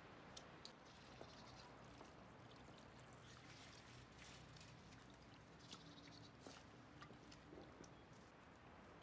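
Faint water poured from a plastic jug onto fresh greens in a plastic basin, with small splashes and light ticks as hands rinse the herbs.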